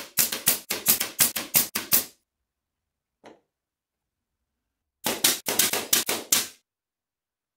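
Pneumatic brad nailer firing brads into wooden frame parts in two quick runs of sharp shots, about five a second: about ten in the first two seconds, then about eight more some five seconds in.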